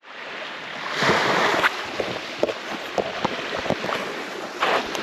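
A rushing hiss of wind on the microphone, swelling about a second in and again near the end, with many short sharp clicks and knocks scattered through it.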